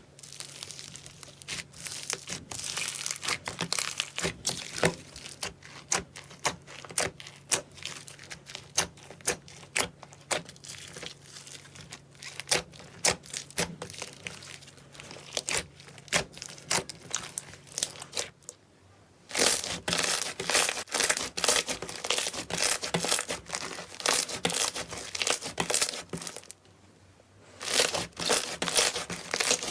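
Slime being squeezed and pressed by hand, giving dense crackling pops and clicks. The sound stops briefly twice, about two-thirds of the way in and again near the end. A faint low hum sits under the first part.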